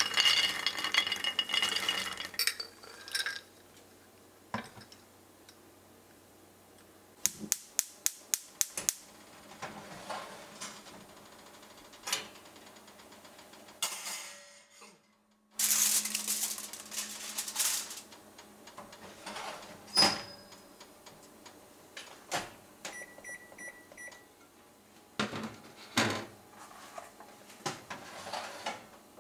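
Kitchen handling sounds at a metal oven tray. Walnuts clatter onto the tray in a quick run of clicks, the tray knocks as it goes into a gas oven's grill drawer, and aluminium foil crinkles briefly as it is laid over the nuts. A short electronic beep sounds near the end.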